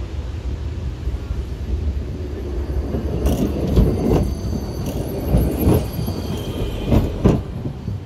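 A tram rolling past with a low rumble, its wheels knocking over track joints in three pairs of clacks about a third of a second apart, with a faint high wheel squeal in the middle.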